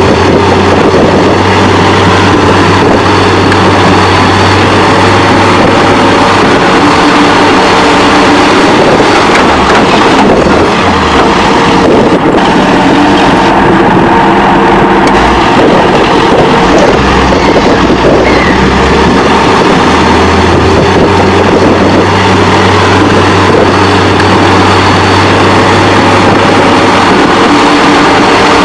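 Diesel engines of excavators and crawler dozers running steadily and loudly, with a deep engine hum that fades out early and returns in the second half.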